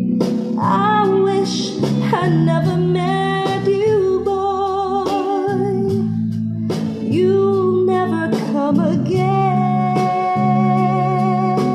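Creative S-700 mini speakers playing a slow pop ballad: a melody of held notes with vibrato over steady low accompaniment, with no sung words.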